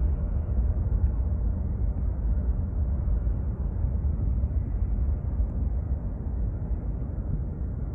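Low, steady rumble of distant jet airliner engines on the runway.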